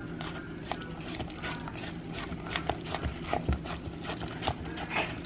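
Silicone spatula stirring thick cornbread batter in a plastic mixing bowl: irregular wet squelches and scrapes, over a steady low hum.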